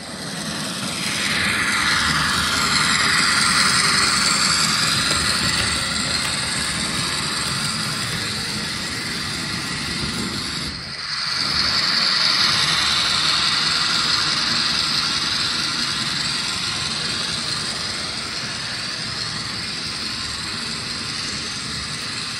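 N-scale model train running along the track close by: a steady rushing noise from the wheels on the rails and the locomotive's motor, its tone sweeping as the train moves past. About eleven seconds in, the sound dips briefly and then picks up again.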